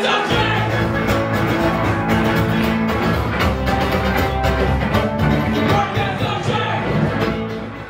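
Live rock band playing, with electric guitar and drums, dying down near the end.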